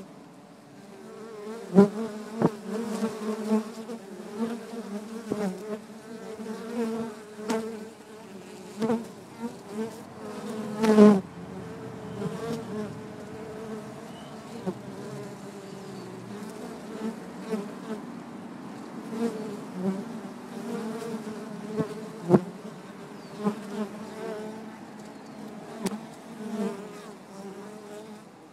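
Honeybees buzzing at the hive entrance: a steady hum of many wings, with repeated louder swells as single bees fly close by, and a few sharp ticks, the loudest about two seconds, eleven seconds and twenty-two seconds in. The bees are foragers coming and going with nectar and pollen.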